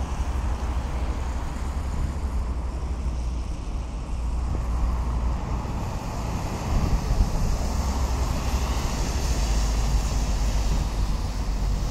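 Road traffic with a heavy lorry driving past, louder from about halfway through, over a steady low rumble of wind on the microphone.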